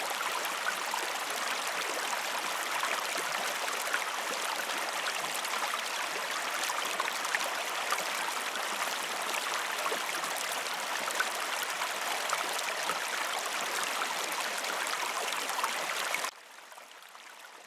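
Waterfall: a steady rush of falling water, dropping away abruptly near the end.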